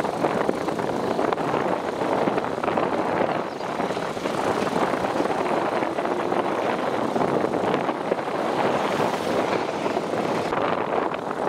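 Steady rush of a motorcycle on the move: wind and road noise blended with the engine running underneath.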